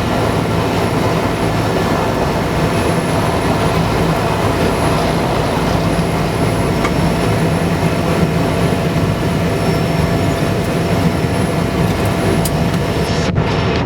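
Steady drone of a Cessna 208B Grand Caravan's Pratt & Whitney PT6A turboprop and propeller in flight, a low hum under a loud even rush. The higher part of the sound cuts out briefly just before the end.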